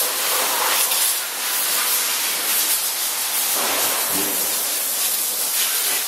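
Steady hiss of running industrial machinery, with some low knocking a little under four seconds in.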